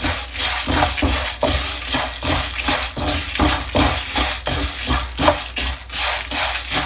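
Wooden spatula stirring dry lentils (black urad dal and chana dal) roasting in a nonstick frying pan: the hard grains rattle and scrape against the pan in quick repeated strokes, about three a second.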